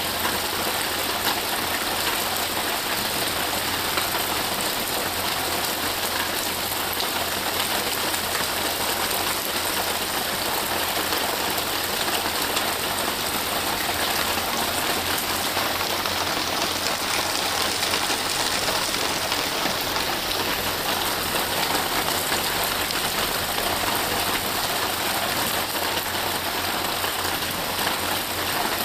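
Steady rain falling on trees and foliage, an even, unbroken hiss of rain with no change in strength.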